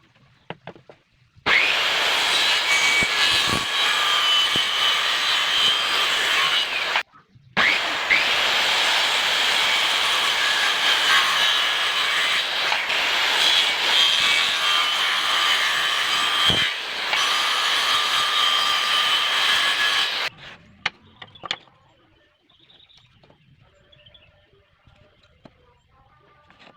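Electric saw cutting through wood with a steady whine. It starts about a second and a half in, stops briefly, runs again and cuts off abruptly about two-thirds of the way through.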